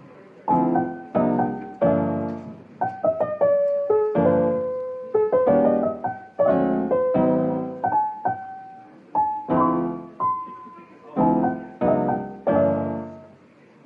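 Background piano music: chords and single notes struck about once or twice a second, each ringing out and fading.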